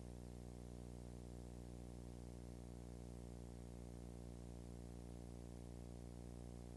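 A steady low hum with many even overtones, unchanging throughout, over a faint hiss.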